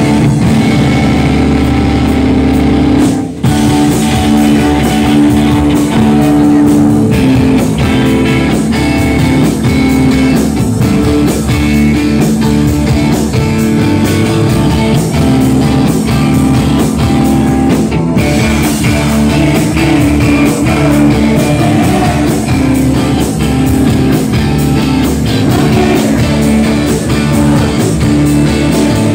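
Rock band playing live and loud, with electric guitar through an amplifier and drums, the music dropping out for a moment about three seconds in.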